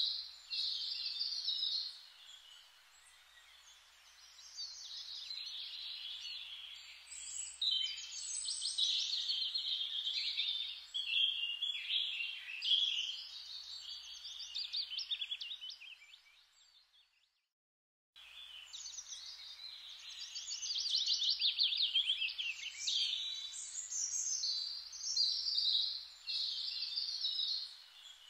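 Several birds chirping and singing, with fast trills. The sound cuts out completely for about a second and a half past the middle, then resumes.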